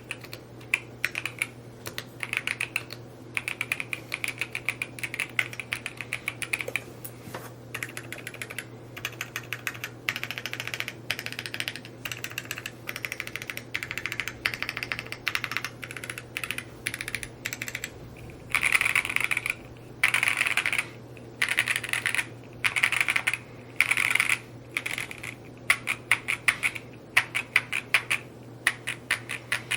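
Mode Encore 2 mechanical keyboard being typed on at speed, a fast continuous clatter of keystrokes with a few denser runs in the second half.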